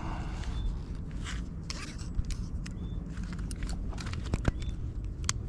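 Steady low outdoor rumble with scattered sharp clicks and scrapes, and a short high chirp repeating about every two seconds.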